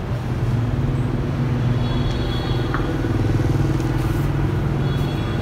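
An engine running steadily, a low even drone with no change in speed.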